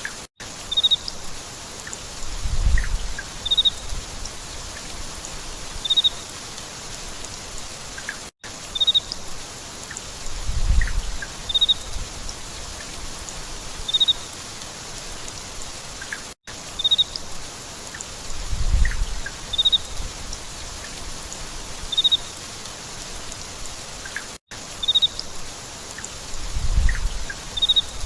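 Steady rain falling, with short high chirps several times and a low thump now and then. The same eight-second stretch of sound repeats over and over, with a brief dropout between repeats.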